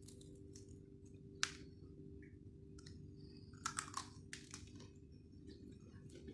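Faint chewing and crunching of crispy fried chicken wings, with a few sharp crunches about a second and a half in and again around four seconds, over a steady low hum.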